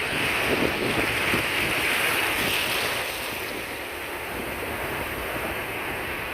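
Sea waves breaking and washing up a beach: a wave's rush is louder for the first three seconds, then eases into a softer steady wash. Wind buffets the microphone with a low rumble.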